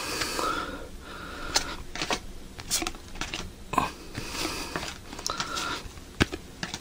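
Trading cards being handled and flipped through one after another: irregular light clicks and rustles of card stock.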